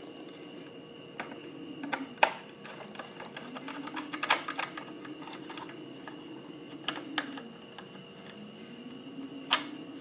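Scattered small clicks and taps as a washer and knob are pushed onto the encoder shaft of a bench power supply and the unit is handled. The sharpest click comes about two seconds in, with a cluster of taps around four seconds and a few more near the end, over a faint steady hum.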